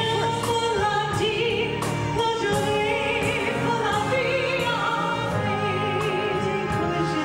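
A woman singing into a microphone with a wavering, operatic vibrato, backed by a live band, amplified through the show's sound system.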